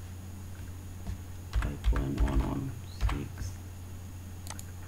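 Computer keyboard keys being typed in a short cluster of strokes about one and a half to three seconds in, with a couple more light clicks near the end, over a steady low hum.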